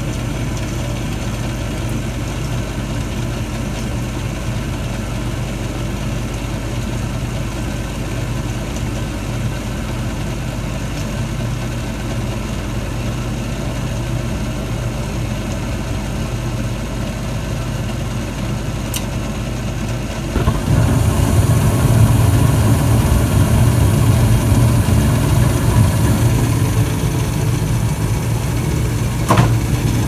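2003 Carrier gas furnace in its startup sequence: the inducer draft motor runs with a steady low hum while the igniter heats. Just before two-thirds of the way through there is a click, and the burners light, the sound becoming louder with a deeper rumble and a rushing hiss of gas flame; another click comes near the end.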